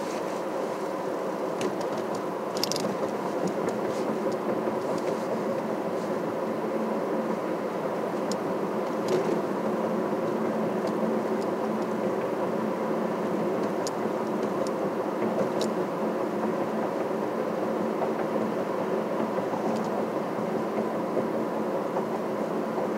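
Steady engine and road noise of a vehicle being driven, with a few faint clicks.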